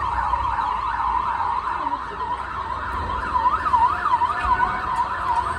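Emergency vehicle sirens yelping, with fast overlapping rising-and-falling wails at about three sweeps a second, more than one siren out of step. A steady low rumble runs underneath.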